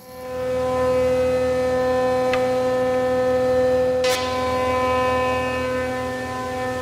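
Benchtop thickness planer running with a steady high whine, coming up to speed over the first second while an ash board is fed through; a sharp click about four seconds in.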